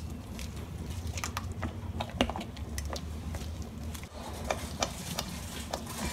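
Silicone spatula stirring thickened chocolate mousse batter in a metal saucepan: irregular soft clicks, taps and scrapes against the pan, over a low steady hum.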